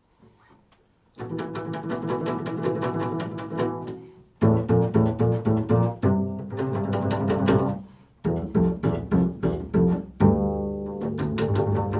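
Upright double bass played in improvised phrases, starting about a second in, with short breaks about four and eight seconds in.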